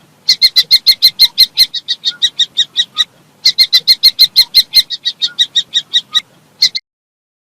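Kestrel calling: a rapid, repeated run of sharp, high "klee-klee-klee" notes, about six a second, in two long bouts with a short break between. It stops near the end.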